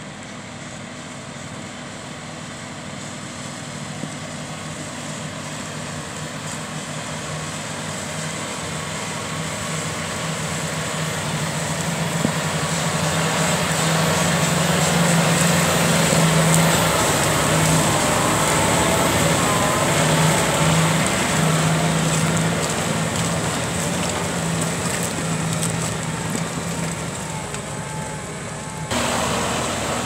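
John Deere 6250R tractor's six-cylinder diesel running steadily under load while pulling a six-furrow reversible plough. It grows louder as the tractor comes close and passes about halfway through, then eases off a little as it moves away.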